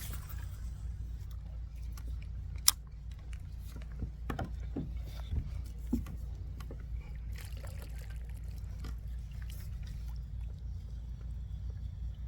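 Scattered small knocks and clicks from gear being handled in a kayak, with one sharp click about two and a half seconds in, over a steady low rumble.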